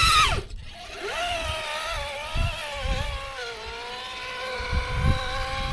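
An RC rock crawler's electric motor and geared drivetrain whine as it climbs under throttle. The whine cuts out about half a second in, then comes back and holds fairly steady, its pitch drifting slowly with the throttle.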